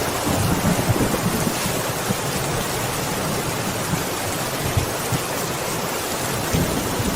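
Steady rain, an even hiss, with a low thunder rumble underneath that fades over the first second or two and swells again near the end.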